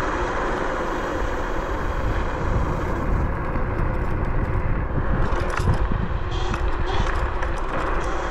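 Steady wind rush and road rumble from riding a Bluetran Lightning 72V electric scooter.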